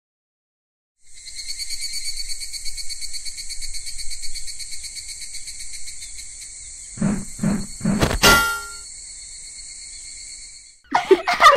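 Insect chorus, a steady high pulsing buzz that fades out shortly before the end. Three dull knocks about seven seconds in are followed by one sharp metallic clang that rings briefly.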